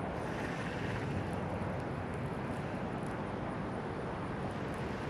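Wind buffeting an outdoor microphone: a steady low rumble with no distinct events.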